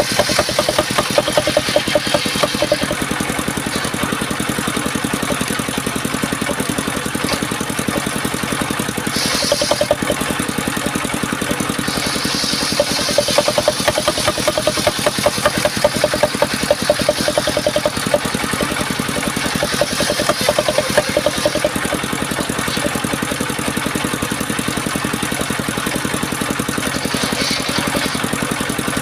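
Engine-driven circular saw running steadily. Every few seconds a higher, harsher noise comes in for a second or two as the blade cuts into timber.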